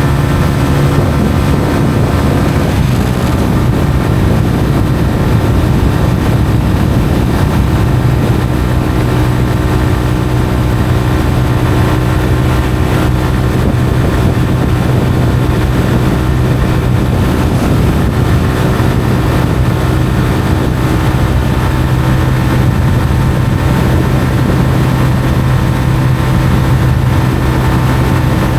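Honda CBR125R's single-cylinder four-stroke engine running through a Mivv aftermarket exhaust while riding at a steady pace. The engine note drops slightly about three seconds in, then holds steady.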